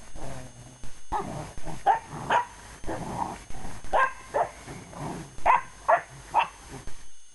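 English Springer Spaniels play-fighting: a run of short barks, about two a second in the second half, with low growling between them.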